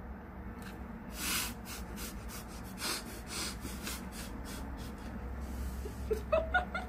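A woman's stifled laughter: several short breathy snorts and exhales, the loudest about a second in, then a few short high giggles near the end.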